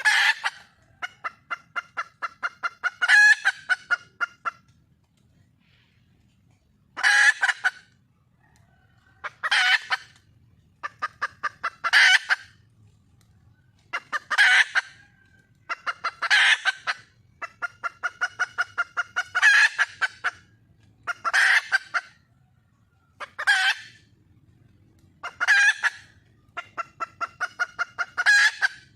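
Red junglefowl hen calling for a mate: repeated cackling bouts, each a loud squawk followed by a quick run of clucks, coming about every two to three seconds.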